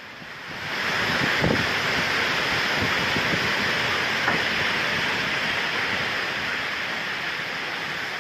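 Steady rushing of storm wind, rising in about the first second and then holding evenly.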